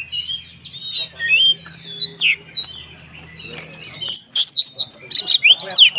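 Oriental magpie-robin (kacer) singing: scattered whistled notes sliding up and down, then from about four seconds in a loud, fast run of chattering, sweeping phrases.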